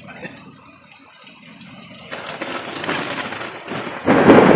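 Thunder from an approaching storm: a rumble that builds from about halfway through and breaks into a loud clap near the end.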